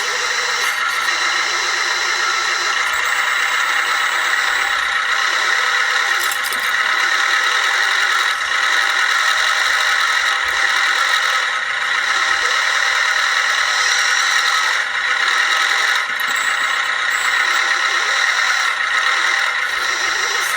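1/14-scale RC construction machines running: a steady, high-pitched mechanical whine with a light rattle.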